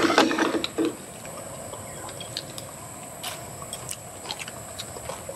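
A brief voice at the start, then faint scattered ticks and small taps as a condiment is shaken from a small glass bottle onto a plate.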